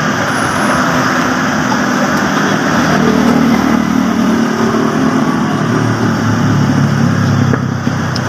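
Road traffic noise with a motor vehicle engine running, its note most prominent through the middle few seconds.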